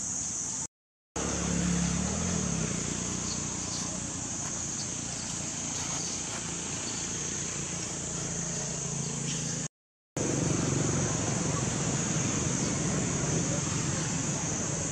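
Steady low motor-vehicle rumble under a constant high hiss. The sound cuts out completely twice, briefly, about a second in and again about ten seconds in.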